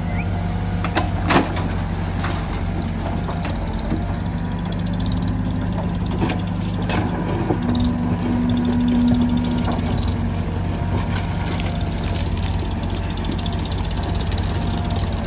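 Diesel engine of a Case 770 backhoe loader running steadily while its backhoe arm digs and swings, with a few knocks of earth and stones. A higher steady tone comes in for about two seconds midway.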